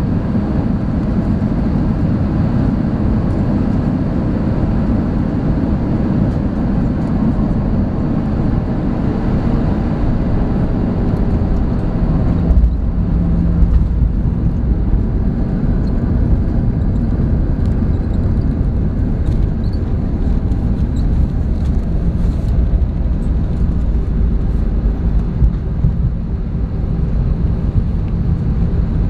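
Cabin noise of an Airbus A320 landing: steady engine and airflow noise on final approach, then a jolt at touchdown about twelve and a half seconds in. After it comes a heavier rumble as the main wheels roll out on the runway, with small rattles in the cabin.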